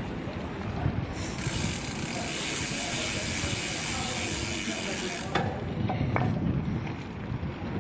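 Mountain bike rear hub freewheel buzzing as the bike coasts, a fast high ratchet whirr that starts about a second in and stops after about four seconds. Tyres and wind rumble underneath throughout.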